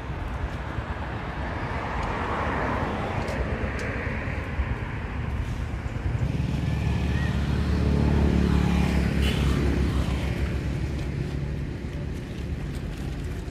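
A motor vehicle passing by: a low engine hum that swells to a peak about eight or nine seconds in and then fades away.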